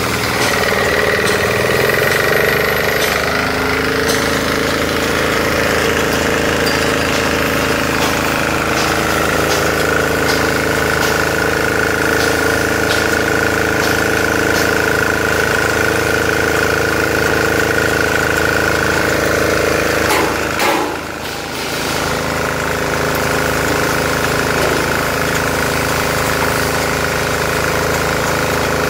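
Small single-cylinder diesel engine on a mobile hollow-block making machine running steadily, its pitch shifting in the first few seconds and then holding even. There is a brief clatter with a short dip in level about 21 seconds in.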